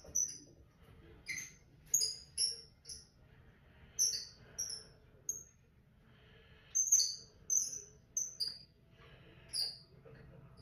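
Small bird chirping: a string of short, high chirps in irregular groups of two or three, about two a second. A faint low hum comes in near the end.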